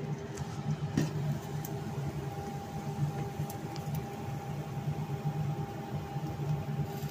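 Omelette cooking in a nonstick pan on a gas hob over a steady low mechanical hum, with a light click about a second in.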